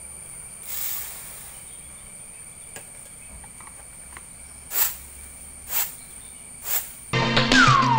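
Grain being winnowed in a flat tray: three short swishes about a second apart, over a steady high insect drone. Music starts just before the end.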